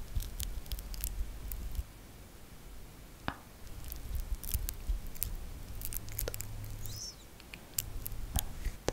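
Mask brush loaded with chocolate face mask, worked close to the microphone. It makes many sharp little sticky clicks over stretches of low rubbing, in three passes.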